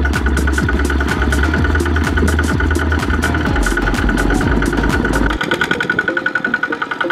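Single-cylinder diesel engines of two-wheel walking tractors running steadily under load while hauling rice-sack trailers through deep mud, a fast, even chugging. Wind rumbles on the microphone until about five seconds in, after which the engine's beat comes through more clearly.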